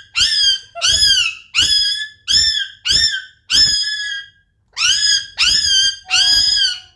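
Pet parrot imitating a puppy's whimpering yelps: about nine short high calls in quick succession, each rising then falling in pitch, with a brief pause midway.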